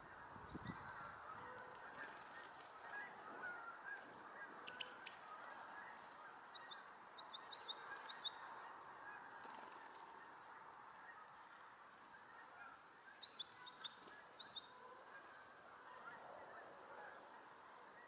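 Faint, distant geese honking continuously as a flock chorus. About 7 and 13 seconds in, a small songbird gives two quick bursts of high, short chirps, louder than the geese.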